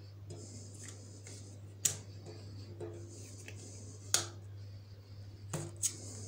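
Tarot cards and hands laid down on a glass tabletop: four sharp taps on the glass, about two seconds in, at four seconds (the loudest), and a quick pair near the end, over a steady low hum.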